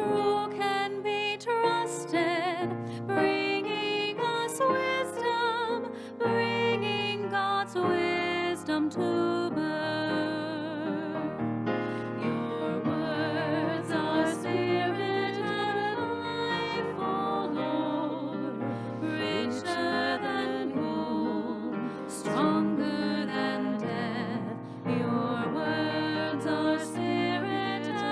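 Slow church music: a melody line with vibrato over sustained keyboard accompaniment.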